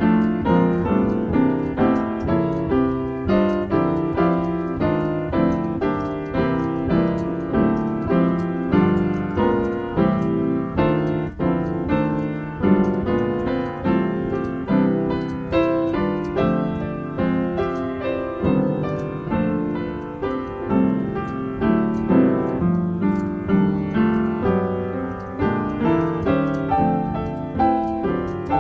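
Solo piano improvisation: chords and melody played without a break, with fresh notes struck several times a second.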